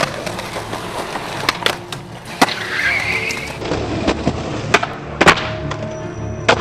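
Skateboard wheels rolling on concrete, with sharp clacks of the board popping and landing several times and a scrape of the board grinding along a ledge about three seconds in.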